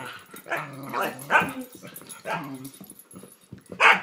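Sighthound dogs barking in play while wrestling, about five short barks spread out, the loudest one near the end.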